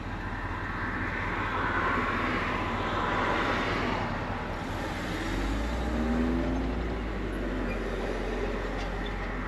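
Engine and road noise of a 1975 Chevrolet C20 pickup, heard inside its cab while driving. It is a steady rumble whose engine note rises a little about halfway through as the truck pulls away.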